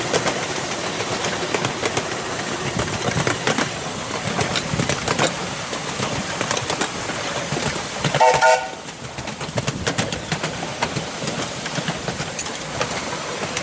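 7¼-inch gauge miniature steam train running, with a steady rumble and rapid clicking of its wheels on the track. About two-thirds of the way through comes one short whistle blast, the loudest sound, after which the running is quieter.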